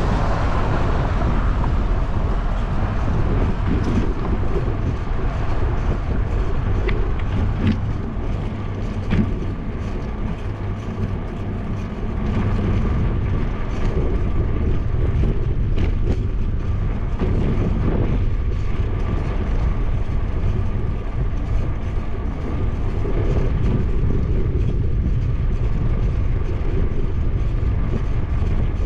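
Steady low rumble of wind and road vibration on an action camera's microphone as a bicycle rolls along an asphalt road. A passing car's noise fades out over the first couple of seconds, and a few light clicks sound now and then.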